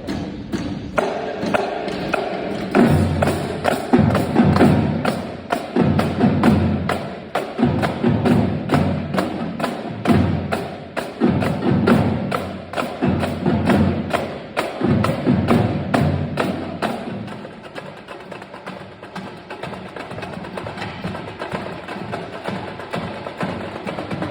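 Marching drumline playing a cadence: a dense run of rapid, sharp, clicking drum strokes with heavy low drum hits coming in repeated bursts. About two-thirds of the way through the low hits stop and the playing turns lighter and quieter.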